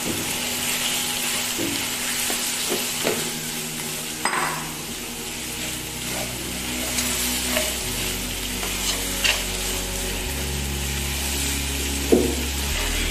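Monitor lizard meat stir-frying with lemongrass, garlic and chilli in a nonstick wok: a steady sizzle with spatula scrapes and occasional sharp taps against the pan, the loudest tap near the end.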